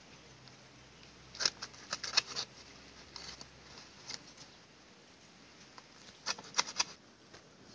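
Large knife chopping an eel into pieces on a small board: a cluster of sharp chops about a second and a half in, a couple of single cuts in the middle, and another quick cluster of chops about six seconds in.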